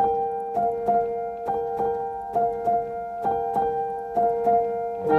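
Background music: a keyboard playing a gentle, repeating piano-like pattern of notes, about three notes a second. A fuller, lower chord comes in near the end.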